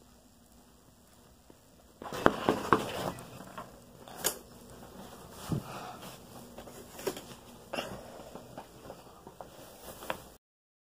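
Rustling of bedding and the knocks and clicks of a phone being handled while a small pet is grabbed by hand; quiet for about two seconds, then an irregular run of sharp clicks and scuffs that cuts off suddenly near the end.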